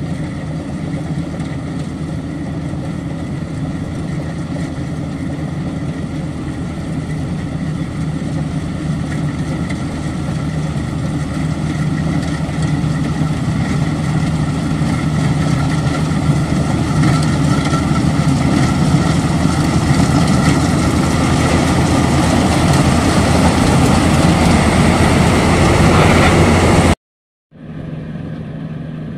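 Maxxi Bimo 102L combine harvester's engine running steadily in a flooded rice field, growing louder as the machine comes closer. Near the end the sound cuts out for a moment and comes back much quieter.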